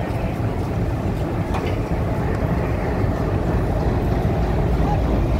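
Diesel locomotive engine idling, a steady low drone.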